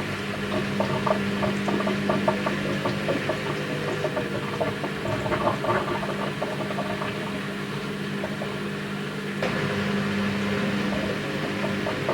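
Washing machine running its wash cycle: a steady motor hum and the sound of laundry tumbling in the drum, with many small knocks. The hum eases off in the middle and picks up again about nine seconds in as the drum starts turning again.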